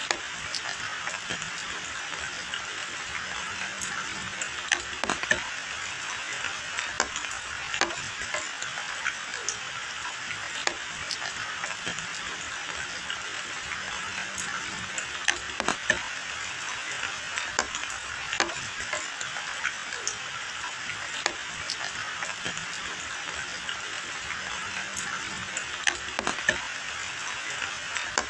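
Steady rain pouring onto a wet asphalt lane and dense leafy hedges: a constant hiss dotted with many scattered sharp drip and splash ticks.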